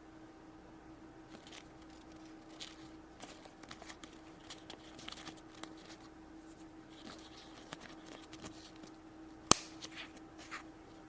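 Hands handling and opening small toy packaging: scattered light crinkles and clicks, with one sharp click about nine and a half seconds in.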